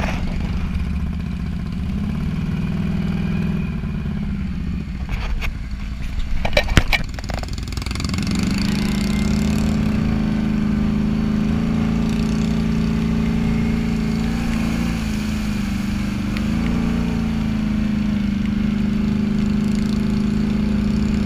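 Can-Am ATV engine running steadily under way on a muddy trail. A short clatter of knocks comes about six to seven seconds in. After that the engine settles into a steady, slightly louder, higher note.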